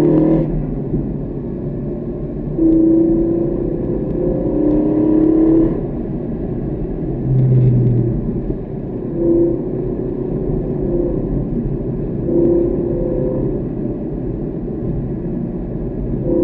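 Car engine heard from inside the cabin, its note rising several times as it accelerates and easing off in between, over a steady rumble of road and wind noise.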